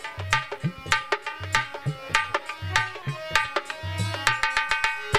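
Hand drums playing a quick rhythm in the instrumental break of a Sawan malhar folk song. Crisp ringing strokes mix with deep bass strokes that slide up in pitch, under a few held melody notes.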